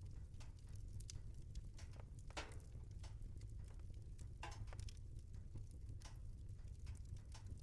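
Wood fire crackling in a fireplace: scattered sharp snaps and pops over a steady low rumble, with two louder cracks about two and a half and four and a half seconds in.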